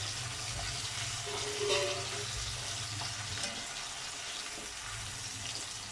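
Gram-flour-battered ivy gourd (tindora) pakoda deep-frying in hot oil, a steady sizzle that eases slightly as the moisture from the gourd and sprinkled water cooks off, the sign the pakoda is nearly done.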